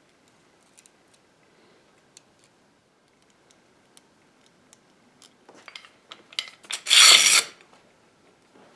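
Faint scattered ticks and taps for the first five seconds, then a run of knocks and, about seven seconds in, a loud scrape about half a second long, as a steel bar clamp is handled and set against a wooden chair frame.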